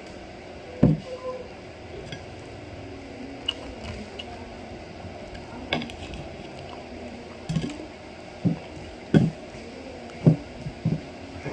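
Fork and knife clinking and scraping against a plate as food is cut and picked up: a handful of short, sharp taps spread irregularly over about ten seconds, over a steady background hum.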